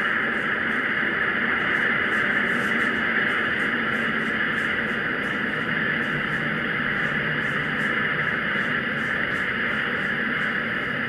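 Steady rushing roar of the Super Heavy booster's 33 Raptor methane rocket engines during ascent.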